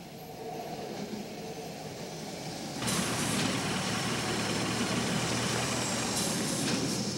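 Steady vehicle noise with no clear engine note, growing louder, then stepping up suddenly to a louder level about three seconds in.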